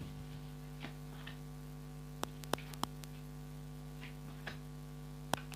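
Steady electrical mains hum with a few sharp clicks: three about a third of a second apart in the middle and one more near the end.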